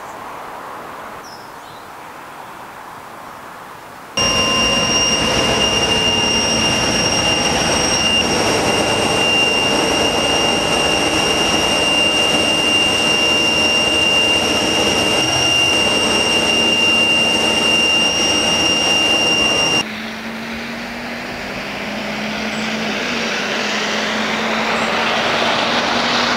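Noise inside a moving bus: a steady running rumble with a constant high-pitched whine, which starts and stops abruptly. Then a double-decker bus's engine grows louder as it approaches.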